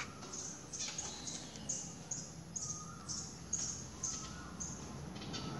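A bird chirping over and over, short high calls about two a second.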